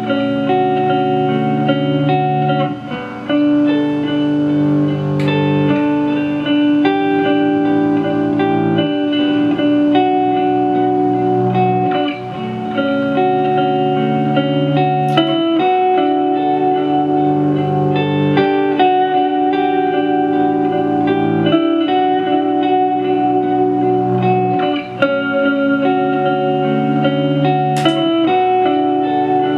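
Ambient electric guitar loop, a Gibson LPJ played through a Line 6 DL4 looper/delay into a small Marshall MG15 amp with its spring reverb all the way up. Long held notes sit over a repeating low part, and the pattern cycles about every three seconds.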